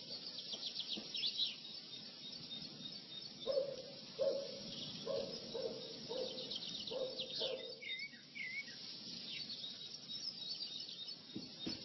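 Small birds chirping and twittering, with a run of about seven short, lower-pitched notes in the middle.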